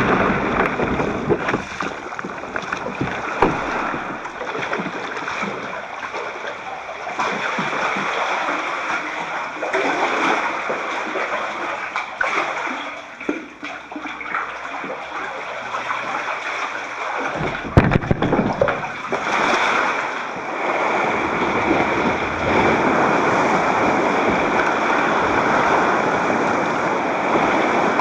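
Sea water splashing and rushing around a Perception Scooter kayak as it is paddled along a rocky shore, heard through a camcorder's waterproof housing. A heavy low thump comes a little past halfway, and the rush of surf grows louder and denser near the end as the kayak passes waves breaking on rocks.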